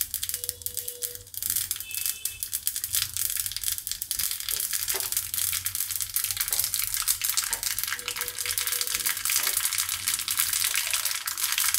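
Mustard seeds popping and sizzling in hot ghee in a small tempering pan: a dense run of rapid crackles over a steady sizzle, growing thicker after the first couple of seconds. The seeds are spluttering, the sign that the ghee is hot enough and the tempering (vaghar) is under way.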